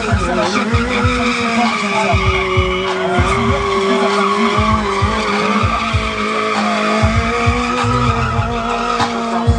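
Sportbike engine held at high, fairly steady revs while the rear tyre spins and skids on the asphalt in a circling burnout.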